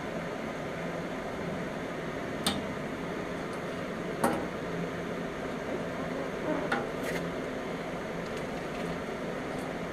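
A few short metallic clinks and knocks, the loudest about four seconds in, as metal pieces are handled, over a steady background hum.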